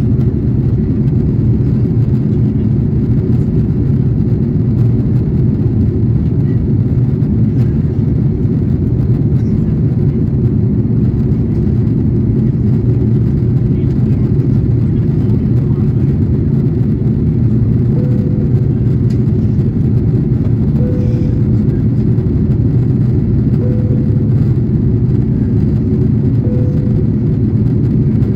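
Steady cabin noise inside an Airbus A330-300 in flight: the constant low roar of the engines and the airflow past the fuselage, heard from a window seat.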